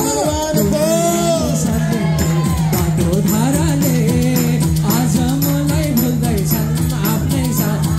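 Devotional aarati music: voices singing a wavering melody over a steady held low note, with a regular beat of jingling, clicking percussion.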